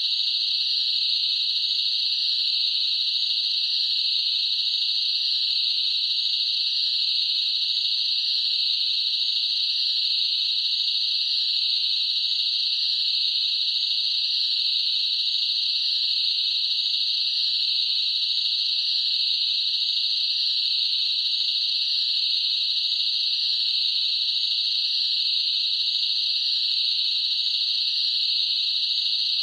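Crickets chirping in a continuous, steady, high-pitched chorus.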